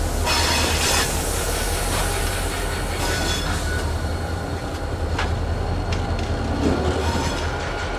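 Freight train rolling slowly on industrial track, with a steady low diesel locomotive rumble. A high wheel squeal comes in the first second, and single sharp clanks of the wheels and couplers follow several times later on.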